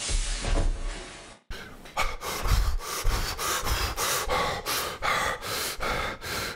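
A rushing noise fades away, then cuts off about a second and a half in. After that a man pants in quick, heavy breaths, about three a second.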